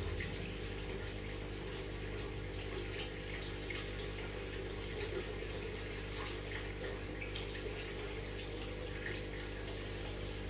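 Aquarium filter running: a steady trickle and splash of water with small drips, over a low, even hum from the pump.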